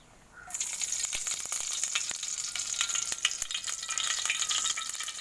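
Hot cooking oil sizzling and crackling in a pan on the stove, a dense spitting hiss that starts suddenly about half a second in.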